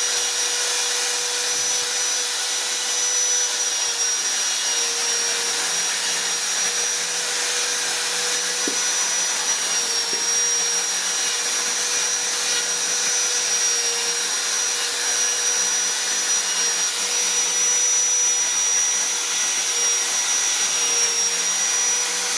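Handheld electric rotary grinder running without a break as its burr bit carves a wooden figure. It makes a high, even whine over a hiss.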